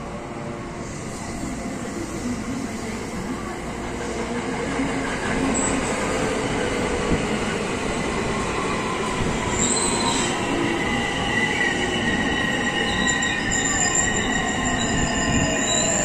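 JR West 281 series 'Haruka' limited express electric train pulling out and accelerating past, its running noise building over the first few seconds, with motor whine shifting in pitch and high, steady squealing tones joining about ten seconds in.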